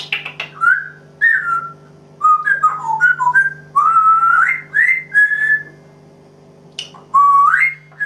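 African grey parrot whistling: a run of short, clear notes that step and slide up and down, a pause, then one rising whistle near the end.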